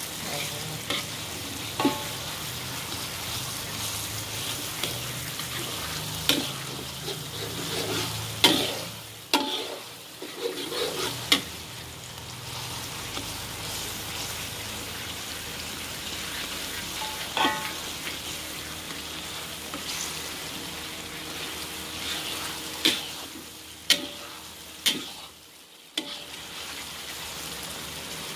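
Chopped aromatics sizzling in hot oil in a wok, stirred with a metal spatula that scrapes and knocks sharply against the pan now and then, loudest about a third of the way in.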